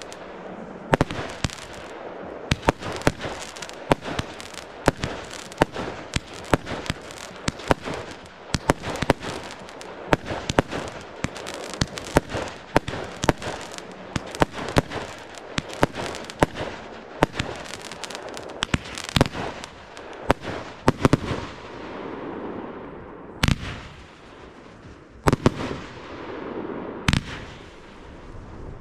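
Fireworks display: a fast, dense string of sharp bangs from bursting aerial shells, with crackling between them. After about twenty seconds the bangs thin out to single loud reports roughly two seconds apart.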